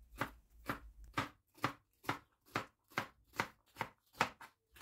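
Chef's knife dicing a red sweet pepper on a plastic cutting board, the blade knocking on the board in an even rhythm of a little over two strokes a second.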